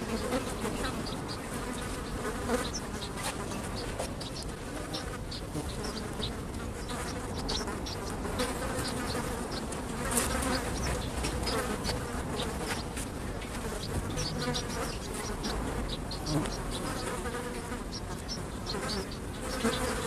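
Flies buzzing steadily, the drone wavering in pitch, with many short ticks and clicks scattered through it.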